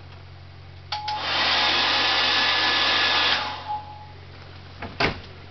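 Handheld hairdryer switched on with a click about a second in, blowing loudly with a steady whine for about two seconds, then switched off and winding down. A sharp knock about five seconds in.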